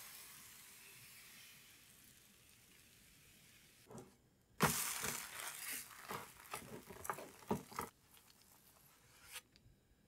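A thin pancake sizzling in a frying pan, the hiss fading over the first few seconds. About four and a half seconds in, a plastic spatula scrapes and clicks against the nonstick pan as it works under the pancake, for about three seconds. A faint hiss follows, with a single light knock near the end.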